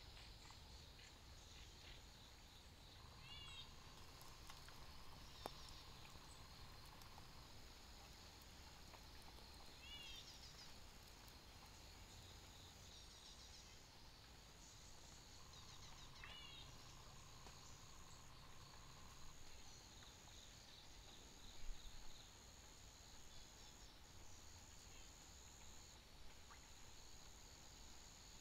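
Faint tropical forest ambience: insects droning steadily at a high pitch, with three short runs of quick bird chirps about six or seven seconds apart. A brief soft knock comes about three quarters of the way through.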